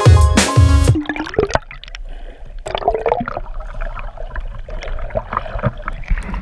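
Water gurgling, sloshing and crackling around a submerged action camera as it moves through shallow surf, with uneven swells and many small clicks. Loud music with a beat cuts off about a second in.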